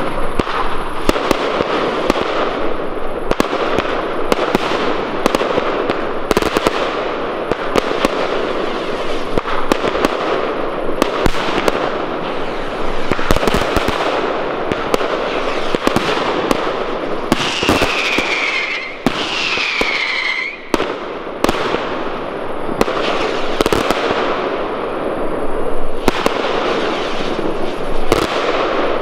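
Fireworks display: a dense, continuous crackle with many sharp bangs as batteries and shells fire and burst. Two falling whistles sound in a row about two-thirds of the way through.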